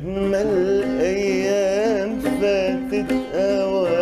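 Man singing long melismatic vocal phrases with a wavering vibrato, accompanied by a plucked oud.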